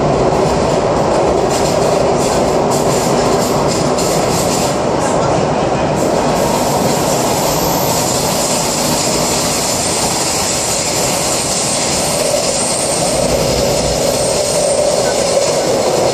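MTR C-Train electric multiple unit running through a tunnel, heard from inside the car: a loud, steady rumble of wheels on rail. Quick light ticks come through in the first few seconds, and a high hiss joins from about six seconds in.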